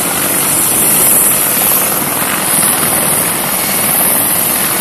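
AH-64 Apache attack helicopters flying low overhead, the nearer one's rotor and twin turboshaft engines loud and steady as it passes close by.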